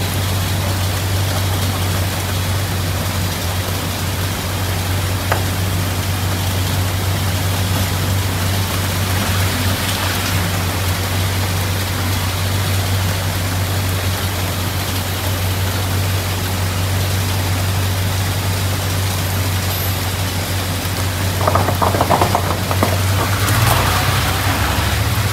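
Off-road utility vehicle's engine idling steadily in heavy rain, with rain pattering on the machine throughout. Near the end there is a brief rapid rattling.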